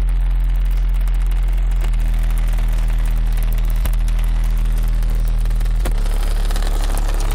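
15-inch car subwoofer playing deep, sustained bass notes that change about every two seconds, loud enough to overload the recording into a crackly, distorted haze.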